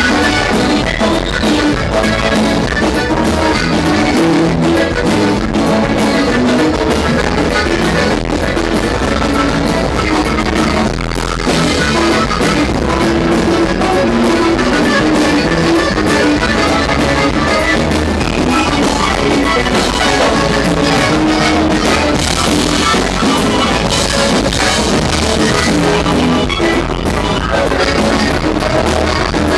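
Live norteño band playing loud amplified music, with a drum kit and guitar, heard as it fills the room.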